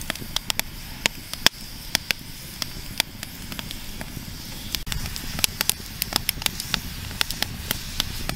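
Wood fire crackling: burning split logs give off sharp, irregular pops and snaps, several a second, over a low steady rumble.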